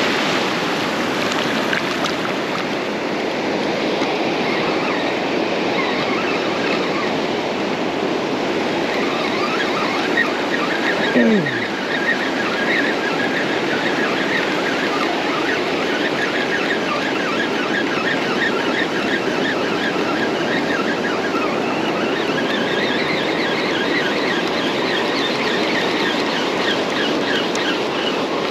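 Surf washing on a sandy beach, with a spinning reel being cranked to retrieve line: its gearing gives a rapid fine ticking from about ten seconds in until near the end. About eleven seconds in, one brief louder sound falls quickly in pitch.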